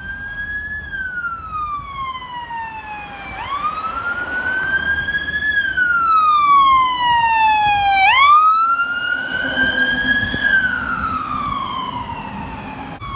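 Fire truck siren on wail, sliding slowly up and down in pitch about every four to five seconds. It gets louder as the truck approaches, is loudest around the middle, and eases as the truck passes.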